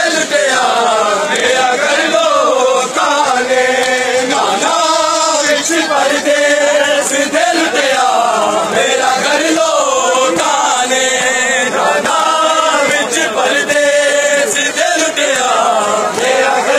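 Men's voices chanting a noha, a Shia lament for Bibi Zainab, together in a melody that rises and falls in long repeated phrases.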